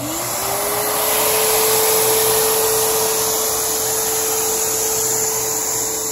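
Intex PureSpa control unit's bubble blower starting up to inflate the spa through the inflation hose. Its motor rises in pitch over about half a second as it spins up, then runs steady with a rush of air.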